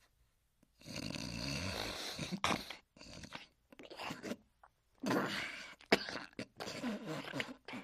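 A sleeping dog snoring: a long, rough breath about a second in, then a string of shorter ones.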